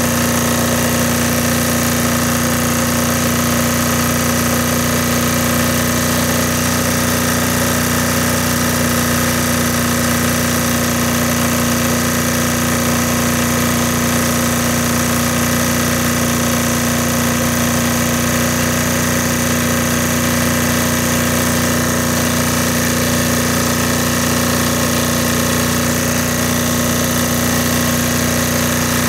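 Air-cooled Yanmar-clone diesel generator engine running steadily under heavy electrical load. Its speed is being trimmed by hand at the governor so that the output settles at 60 Hz.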